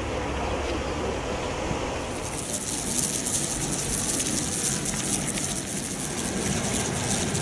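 Low outdoor rumble, then from about two seconds in a dense, high, fine crackling of a locust swarm on the wing over ground.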